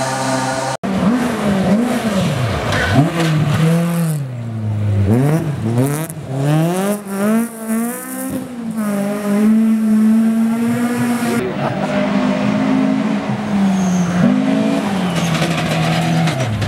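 Rally car engine revving hard, its pitch climbing and dropping again and again through gear changes and corners, held high for a few seconds in the middle. The sound breaks off abruptly for an instant about a second in.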